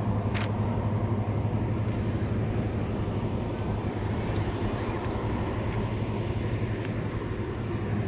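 A steady low mechanical hum at a constant pitch over outdoor background noise, with a short click about half a second in.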